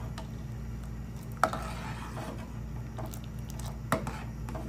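Steel ladle stirring milk custard in a pan, knocking sharply against the pan about a second and a half in and again near the end, over a steady low hum.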